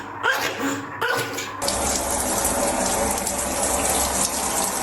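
A dog whines in short rising cries, then about a second and a half in the sound changes to a steady rush of running water, as from a tap filling a bath.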